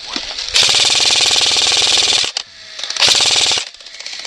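Airsoft gun firing two full-auto bursts, the first about a second and a half long, the second about half a second, each a rapid rattle of shots.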